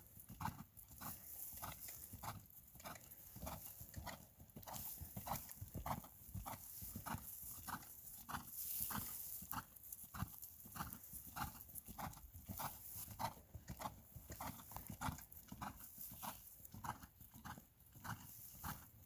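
A horse trotting and cantering on grass under a rider: a steady rhythm of hoofbeats on turf, a little over two beats a second.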